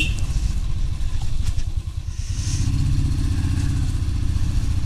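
Royal Enfield single-cylinder motorcycle engine running at low speed while riding, with a slight dip about two seconds in before it settles into a steadier note.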